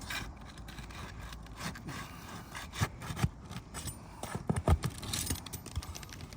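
Roof shingles being pried and scraped loose by hand tools: uneven scraping with several sharp knocks, the loudest a little past the middle.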